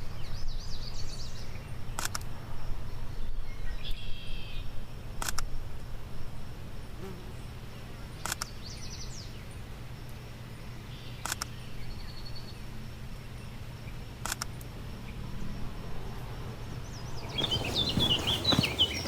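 Songbirds singing and calling over a steady low background rumble, with a sharp click about every three seconds. Near the end a bird sings louder and faster at close range.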